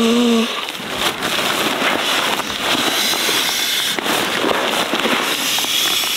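Nylon pump sack crinkling and rustling steadily as it is pressed down to push air into an inflatable sleeping pad, with a dense crackle of fabric noise throughout.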